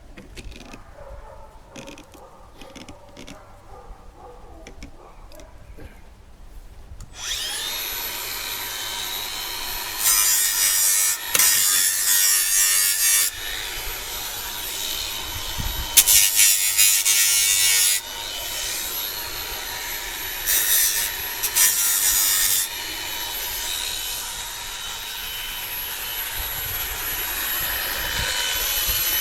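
Faint clicks and handling, then about seven seconds in a small handheld power tool starts and runs with a steady whine. It gets louder in several stretches of a few seconds each as it grinds rough edges and corners smooth.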